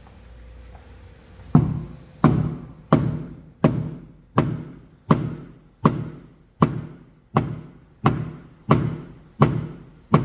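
Paintless dent repair tap-down on an aluminium car hood: a hammer striking a knockdown tool, knocking down a raised spot in the panel. Evenly spaced knocks, about one and a half a second, start about a second and a half in, each with a short ring.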